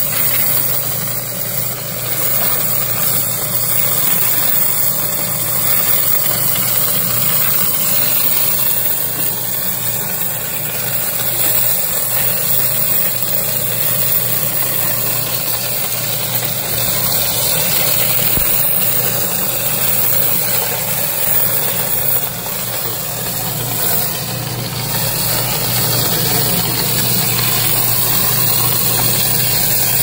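Coin-counting machine running steadily, its motor humming while a stream of quarters rattles through it as they are poured in from a plastic bucket.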